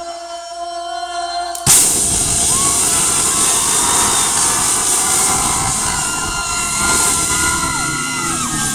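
Live rock band on a loud club PA. A single sustained note is held at first, then the full band crashes in suddenly with drums and cymbals just under two seconds in and keeps playing, with crowd screams over it.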